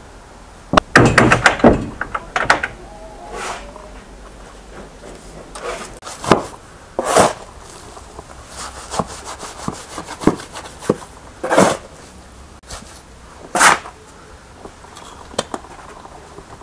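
Wet clay mud being worked by hand and foot: irregular thuds and knocks with a few short scraping swishes, the busiest cluster of knocks about a second in.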